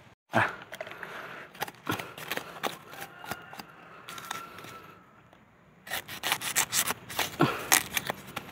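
Rustling, crackling and scraping in dry bamboo leaf litter as it is brushed and trodden through, with rubbing handling sounds; the crackling turns dense and quick in the last two and a half seconds.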